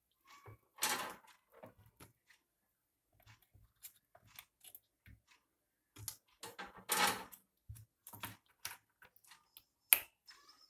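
Scattered light clicks and taps of hands handling parts and multimeter probes on a circuit board, with two short scraping rustles, one about a second in and one about seven seconds in, and one sharp click near the end.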